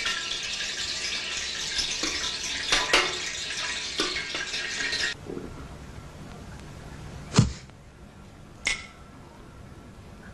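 Water running from a tap into a sink as hands are washed, with a few splashes and clatters; the water shuts off suddenly about halfway through. Two sharp knocks follow, the first the louder.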